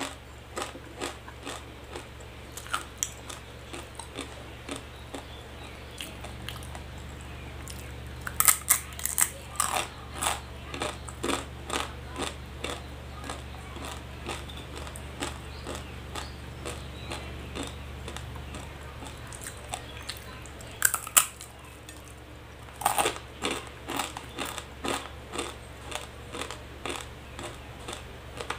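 Close-up crunching bites and chewing of dry, uncooked instant noodles, sharp crackling crunches throughout, with loud clusters about a third of the way in and again past two-thirds. A steady low hum runs underneath.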